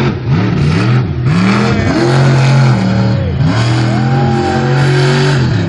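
Monster truck's big V8 engine revving hard. It gives several quick blips, then is held at high revs twice for about a second each, and drops away near the end as the truck is driven on its rear wheels.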